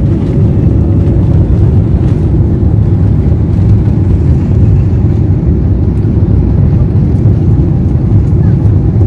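Steady low rumble inside an airliner cabin, the engine and rolling noise of the plane moving on the ground at the airport.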